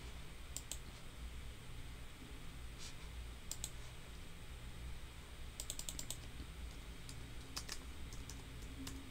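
Computer keyboard keys and mouse clicking in scattered taps, with a quick run of keystrokes a little past halfway, over a faint low hum.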